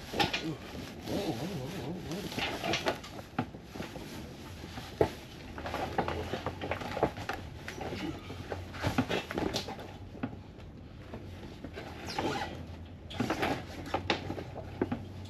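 Irregular knocks, clanks and scrapes of a jet ski engine being worked loose and manoeuvred out of its hull by hand.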